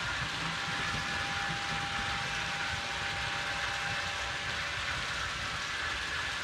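Fleischmann HO-scale model trains running together on a large layout: a steady rolling hiss of metal wheels on rails with faint, steady whining tones from small electric motors.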